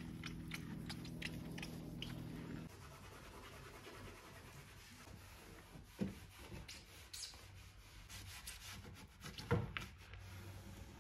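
Cleaning cloth rubbed by a rubber-gloved hand over kitchen tiles and cabinet surfaces, soft scratchy wiping with two light knocks about six and nine and a half seconds in. A low steady hum underneath stops a quarter of the way in.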